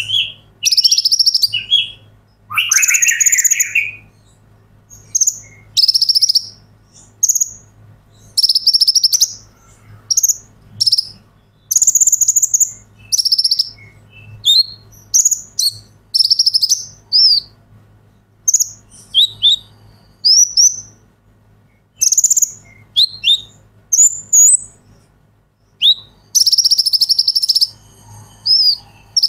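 A caged male van Hasselt's sunbird (kolibri ninja) singing a run of short, very high, rapid trilled phrases every second or two, with thin chirps between them.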